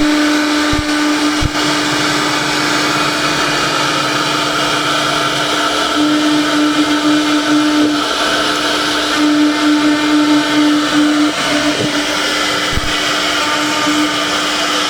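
CNC router spindle running at a steady high speed while cutting wood: a constant whine over a rushing cutting noise.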